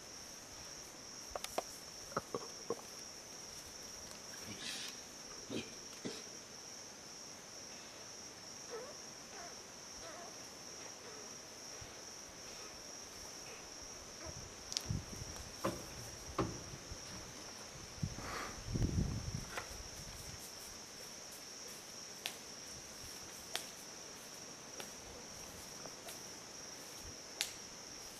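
Steady high-pitched insect drone, with scattered soft clicks and knocks and a cluster of low thumps about two-thirds of the way through.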